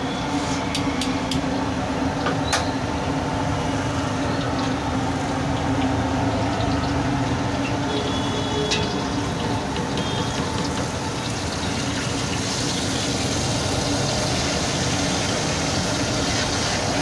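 Steady noise of a gas wok burner and hot oil sizzling in an iron wok, with a few sharp metal clicks of a utensil against the wok, several in the first few seconds and one more past the middle. The sizzle grows brighter in the last few seconds.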